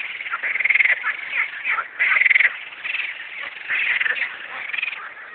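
Frogs croaking back and forth, a steady run of short, rattling pulsed calls that overlap and answer one another, the loudest about two seconds in.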